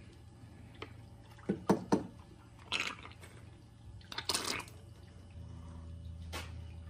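Plastic squeeze bottle (snuffer bottle) sucking water and black sand out of the chevron grooves of a sluice table: a handful of short watery bursts, the loudest a little over four seconds in. A low steady hum comes in past the middle.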